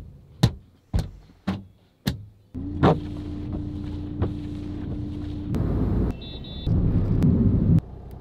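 Four sharp knocks about half a second apart. Then a car's windscreen washer motor runs with a steady whine, and the wipers sweep the wet windscreen in two louder swishes.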